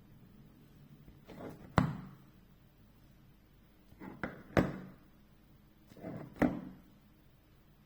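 Phone box and packaging being handled: three times, a short scrape or rustle ends in a sharp knock, about two seconds apart.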